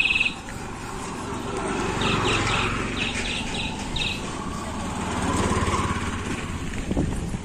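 Small engine of a CNG auto-rickshaw running close by, its sound swelling and its pitch rising then falling as it passes, over a steady low rumble of wind and tyres on a dirt track. Two quick runs of high chirps come right at the start and again from about two to four seconds in.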